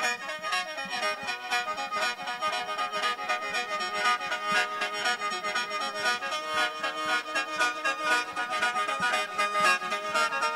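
Khaen, the Isan bamboo free-reed mouth organ, playing a quick lai melody over its own held drone notes, with a steady beat behind it.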